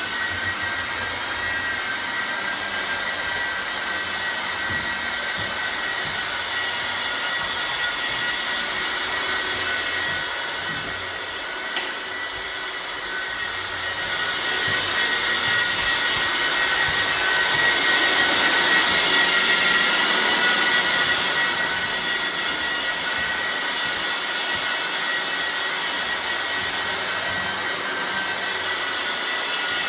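Floor sanding machine running steadily with a high whine over a hiss, growing louder for several seconds past the middle and then settling back. A single sharp click comes just before it grows louder.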